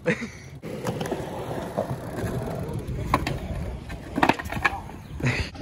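BMX bike rolling over concrete with a steady rumble from the tyres, with a few sharp knocks about three, four and five seconds in.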